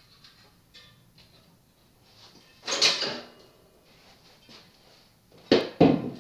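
Mountain bike rear wheel being worked loose from the frame: a short metallic scraping rattle about three seconds in, then two sharp clunks near the end.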